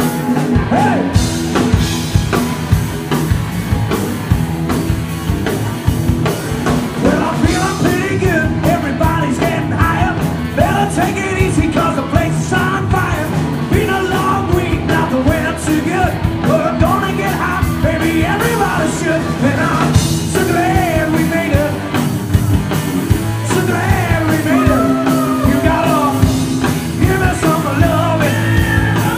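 Live rock-and-roll band playing loudly: drum kit, bass and guitar, with singing over the top.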